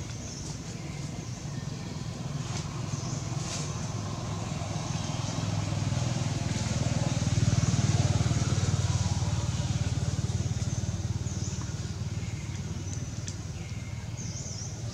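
A motor vehicle's engine rumbling as it passes, growing louder to a peak about halfway through and then fading, with faint bird chirps over it.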